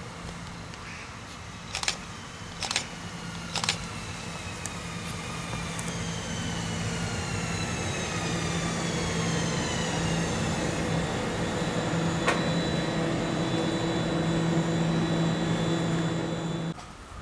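An HLB electric multiple unit running into the station, with a low steady hum and a whining motor note that glides slowly down in pitch as the train brakes, growing louder as it comes alongside. A few sharp clicks sound in the first seconds, and the sound cuts off suddenly near the end.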